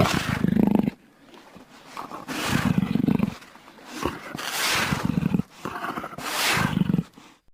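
Designed Eoabelisaurus dinosaur vocalisation: four separate roars, each lasting about a second, with short gaps between them.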